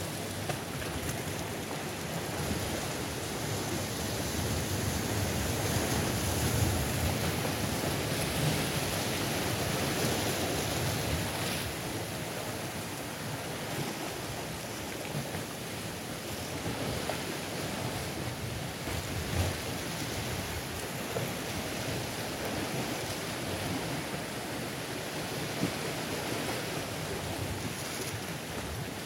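Sea waves breaking and washing over coastal rocks in a steady surf, louder for a few seconds about a quarter of the way in.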